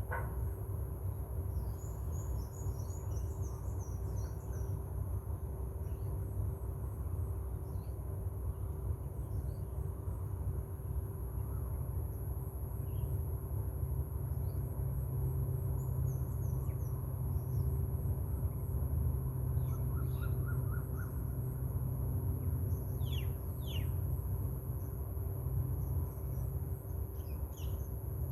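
Birds chirping in short clusters of thin, high calls, a few of them quick falling notes, over a steady low rumble.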